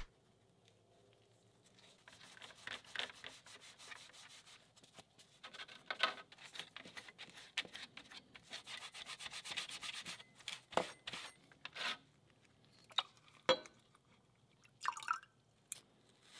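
Foam sponge wet with cleaner-degreaser scrubbed rapidly back and forth along a steel rifle part, degreasing the metal before bluing. A few light clicks follow near the end.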